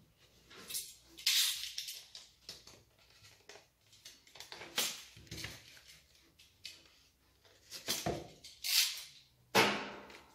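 Packaging rustling and scraping in irregular bursts as a chainsaw guide bar is unwrapped by hand, loudest near the middle and towards the end.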